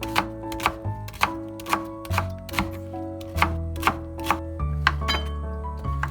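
Knife chopping on a cutting board in steady strokes, about two a second, over soft background music.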